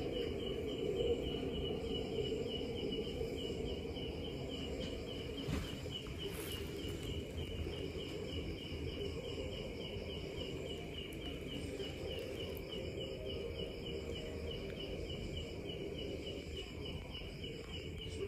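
A cricket chirping steadily, about three evenly spaced chirps a second, over a low steady hum.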